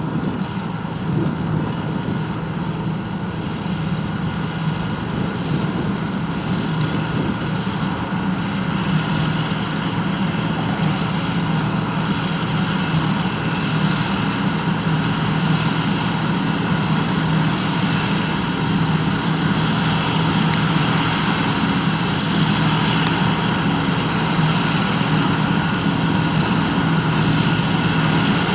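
John Deere 9580 WTS combine harvester running steadily, its engine note gradually getting louder.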